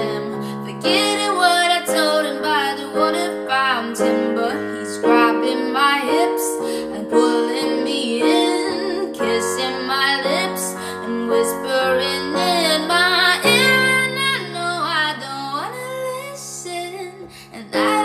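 A woman singing a song over a keyboard accompaniment of long held chords.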